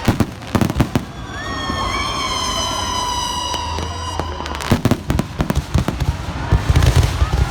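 Fireworks going off: a few sharp bangs at the start, a long steady whistling tone through the middle, then clusters of bangs and dense crackling near the end.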